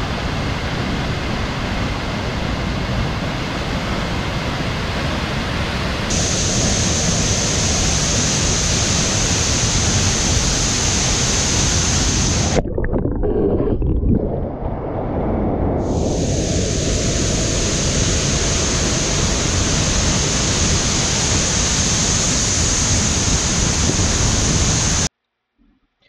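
Loud, steady rushing of a waterfall. The roar changes at cuts about six seconds in, then drops and thins for a few seconds around the middle before returning, and it stops abruptly near the end.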